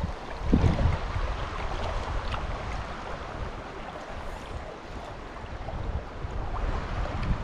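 River current rushing steadily, with low buffets of wind on the microphone that are strongest about half a second in.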